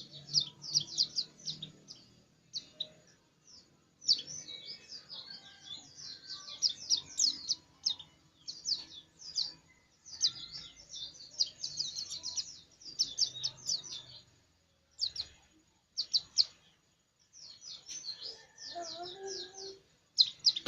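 A white-eye (pleci) singing hard: rapid, high twittering phrases in bursts of a few seconds, broken by short pauses.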